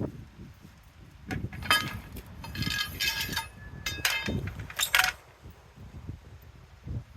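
Small metal hardware clinking and jingling as it is handled, with short ringing tones, over a low rumble. The clinks come in clusters between about one and five seconds in, and no drill runs.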